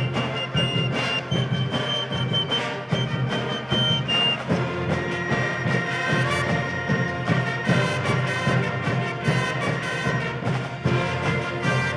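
A sports band of brass and drums playing a piece, with held brass notes over a steady drum beat.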